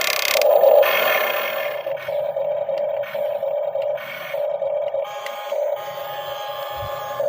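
Small electric motor and pump of a radio-controlled model excavator whining steadily, swelling in short surges as its hydraulics work, loudest about half a second in.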